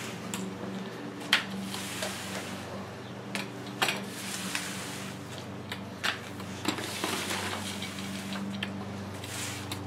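Paint roller back-rolling wet silicone-based concrete sealer over textured stamped concrete: a wet swishing that swells and fades with the strokes, with a few sharp clicks. A steady low hum sits underneath.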